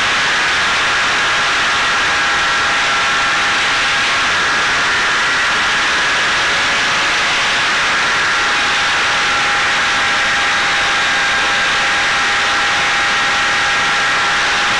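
Electric motor and pusher propeller of a Caipirinha 2 flying-wing FPV plane running in flight, a steady whine of held tones over a loud rush of air, heard from the camera on board.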